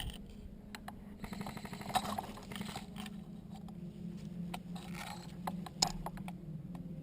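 Scattered light clicks and rattles over a steady low hum, with a quick run of clicks about a second in.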